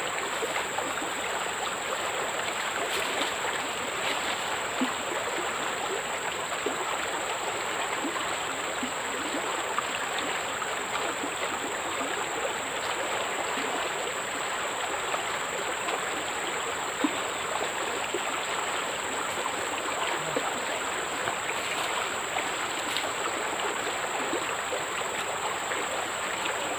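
Steady outdoor rush of noise like running water, with a continuous high-pitched tone over it and a few faint clicks.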